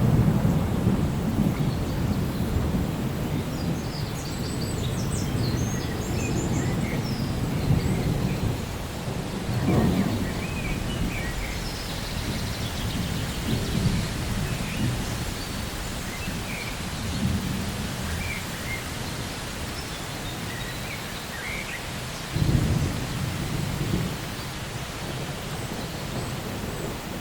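Steady rain with low rolling thunder. The rumble is loudest at the start and fades, then swells again about ten seconds in and about twenty-two seconds in.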